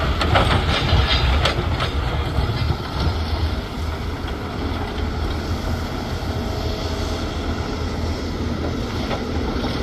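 Diesel engine of a Volvo excavator running steadily under load, with broken basalt rock clattering for the first few seconds and a couple of single knocks later.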